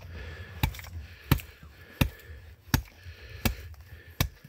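Hatchet chopping: six sharp blows at a steady pace, about 0.7 seconds apart.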